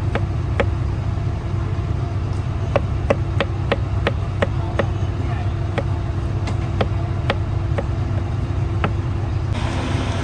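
Steady low rumble with a string of irregular sharp knocks over it, spaced about half a second to a second apart. The background changes suddenly near the end.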